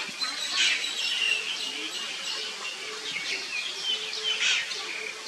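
Small birds chirping and calling in the trees: many short, high chirps and brief whistled notes overlapping throughout.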